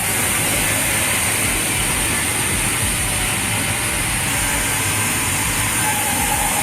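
Sawmill production-line machinery running: a steady, dense mechanical din with a constant high whine, as logs are sawn into planks.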